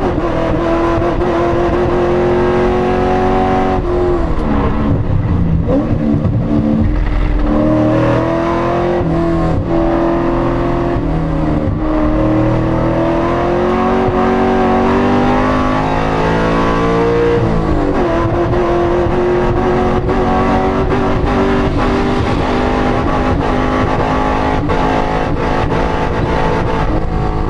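Corvette engine with a misfire, running under load while driven. Its pitch drops sharply about four seconds in, climbs slowly over the following stretch, then drops sharply again around seventeen seconds, as at gear changes or lifting off the throttle.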